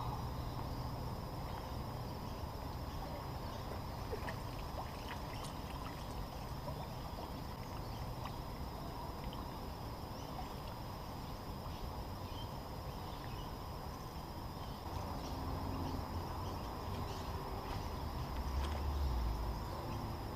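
Outdoor ambience at the water's edge: a low rumble of wind on the microphone under a faint steady high whine, with scattered small clicks and trickling water as a catfish is netted and lifted from the water. The rumble swells near the end.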